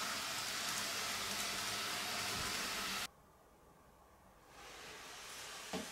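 N gauge model trains running on the layout: a steady rolling hiss of wheels and motors on the track. It cuts off sharply about three seconds in, then slowly builds again, with a brief sharp sound near the end.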